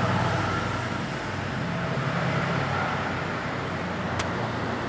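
A steady low mechanical hum, with a faint tick near the end.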